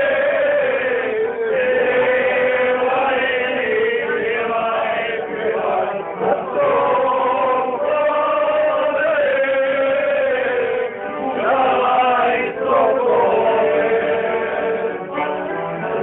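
Male voices singing a slow song together in long held notes, choir-like.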